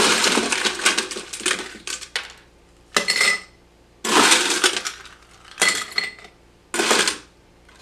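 Ice cubes being scooped and dropped in for a cocktail, clattering and clinking in about five separate bursts, the first and longest lasting about two seconds.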